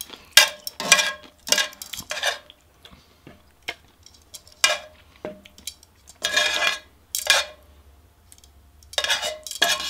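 Metal tongs clinking and scraping against a cast-iron skillet while lifting saucy rice cakes and noodles: a series of separate strokes, with a longer scrape about six and a half seconds in.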